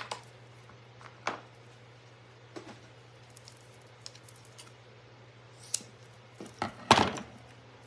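Scissors snipping a craft sponge into small pieces: a few scattered short snips, the loudest cluster near the end.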